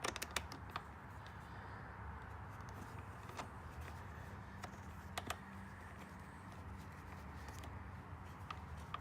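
Small clicks and taps of screws being fitted and driven in to fasten a motorcycle's plastic side cover: a cluster in the first second, then a few single clicks. A steady low hum runs underneath.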